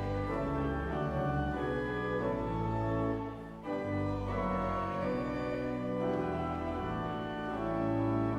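Church organ playing slow, held chords, with a brief break in the sound about three and a half seconds in.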